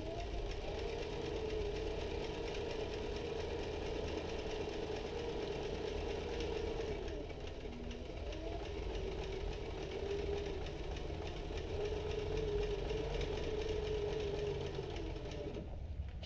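Industrial post-bed leather sewing machine stitching two leather panels together, running in a fast, even rhythm of needle strokes over a motor hum that wavers in pitch with speed. It winds down and stops near the end.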